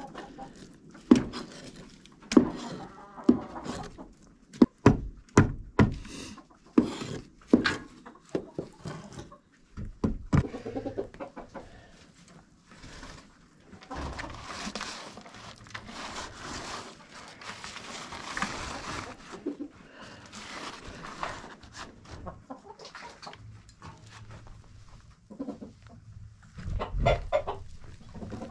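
Chickens clucking in the coop. A run of short, sharp sounds comes over the first eight seconds or so, and a stretch of rustling noise follows in the middle.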